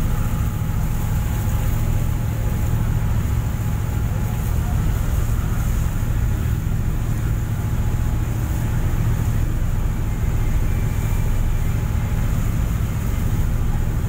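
Steady low rumble of a passenger ship under way at sea: engine drone mixed with wind and water noise, unchanging throughout.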